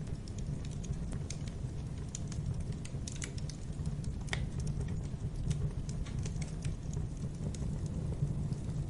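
Wood fire burning in a fireplace: a steady low rumble of flames under scattered, irregular crackles and small pops, with one fuller pop near the middle.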